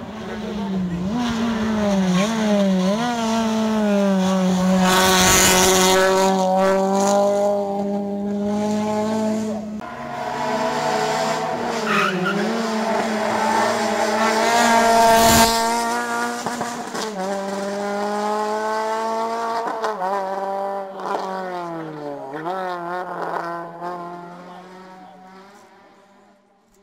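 Rally car engines at high revs, the pitch climbing and dropping sharply again and again with gear changes and lifts, as cars pass on a tarmac stage. The note swells loudest twice as a car goes by close, then fades away near the end.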